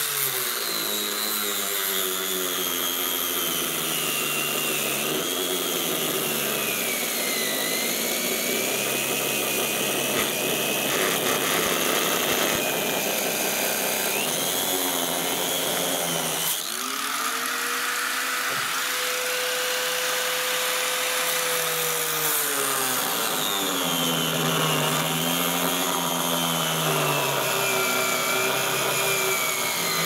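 A power tool's spinning cutting disc sawing through a Candy washing machine's glued plastic tub. The motor whine sags and recovers as the disc bites into the plastic. About halfway through it briefly eases, runs at a steady higher pitch for a few seconds, then drops again as the cut resumes.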